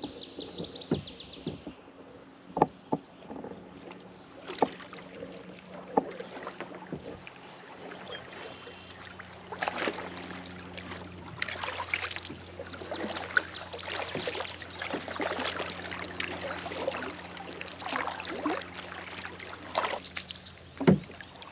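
Kayak being paddled. A few sharp knocks come about two seconds apart in the first six seconds. After that the paddle blades swish and splash through the water, stroke after stroke.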